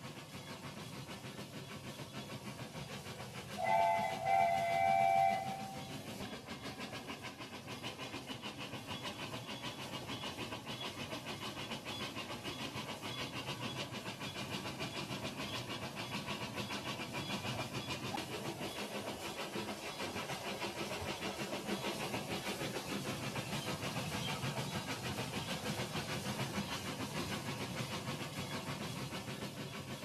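Remote-control Rail King toy train running on plastic track, its small motor and wheels making a steady whirring rattle. About four seconds in, the toy's electronic train whistle sounds in two short toots.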